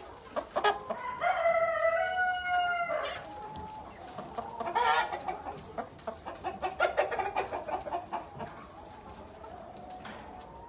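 A flock of Black Tailed Red Marans chickens clucking, with one long drawn-out call held for about two seconds near the start. Many quick, short clucks follow in the middle.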